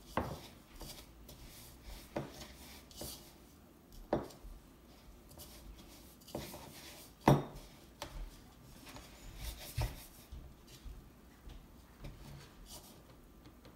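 Raw chicken being rolled in breadcrumbs by hand in a mixing bowl: irregular knocks of hands and chicken against the bowl and rustling of the crumbs, with one sharp knock about seven seconds in the loudest.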